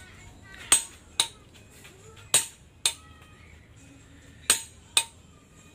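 Hammer striking a steel drift to drive a king pin into a truck's steering knuckle: sharp, ringing metal-on-metal blows, mostly in pairs about half a second apart.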